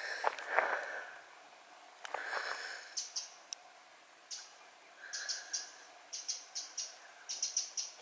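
Footsteps on a woodland path, with short high chirps repeating in quick groups of three or four from about five seconds in.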